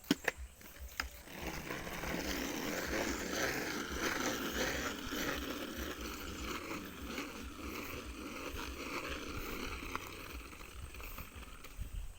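Kick scooter wheels rolling on pavement: a few clicks, then a steady rolling scrape that starts about a second in and keeps going.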